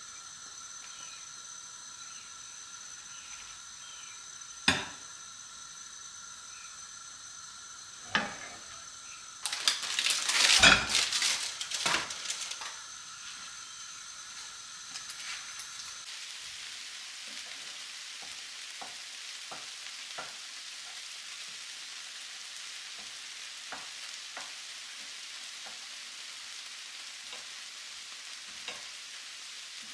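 A few knocks and a loud clatter of kitchenware for a few seconds, then food sizzling steadily in a frying pan with small crackles and pops.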